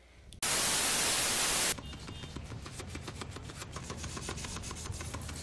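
A burst of loud static hiss lasting just over a second, starting abruptly and cutting off abruptly. It is followed by fainter crackling noise with many small clicks.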